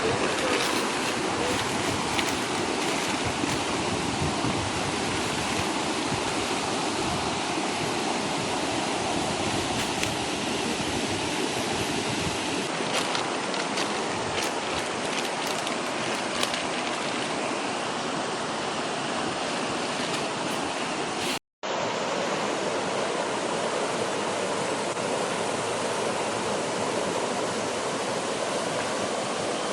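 Steady rushing of flowing river water, broken by a brief gap about two-thirds of the way through.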